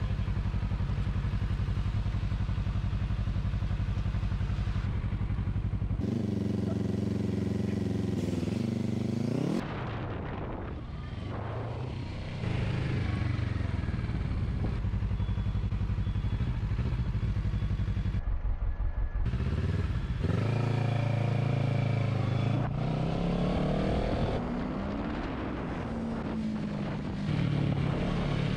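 Sport motorcycle engine running while riding in traffic, steady at low revs, then revving up with rising pitch twice (about a fifth of the way in and again about three quarters of the way in) as it accelerates through the gears. The engine drops off briefly just past the middle.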